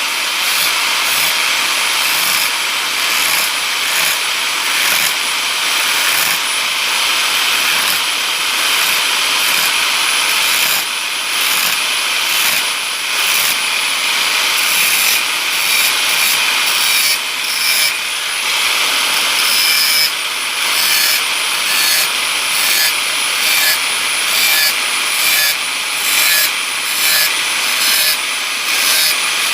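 Dimmer-controlled angle grinder sharpening the teeth of a hand saw: a steady high whine with the hiss of the disc on steel. In the second half it breaks into short strokes about once a second as the disc moves from tooth to tooth.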